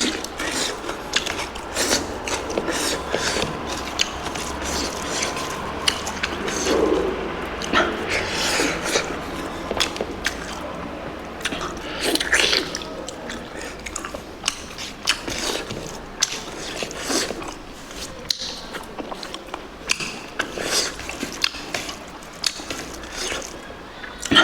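Close-miked eating sounds: a person chewing and crunching through mouthfuls of spicy pork curry, a rapid, irregular run of wet clicks and crackles.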